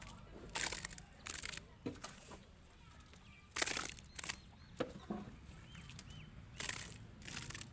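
Dry cattle feed being scooped and poured into containers: about six short rustling pours, a second or two apart.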